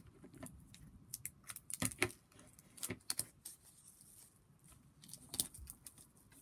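Clear sticky tape and a card shape being handled and pressed around a tinsel pipe cleaner: scattered small clicks and crackles, a few louder ones about two, three and five seconds in.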